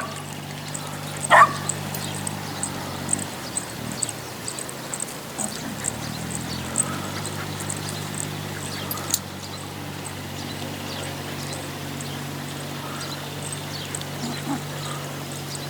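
A dog barks once, sharply, about a second in, over a steady low hum and a run of faint, evenly spaced high ticks.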